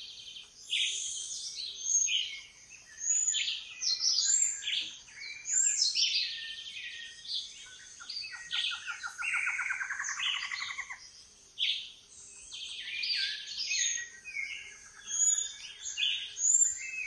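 Many birds calling and chirping over one another, with a fast pulsed trill between about eight and eleven seconds in.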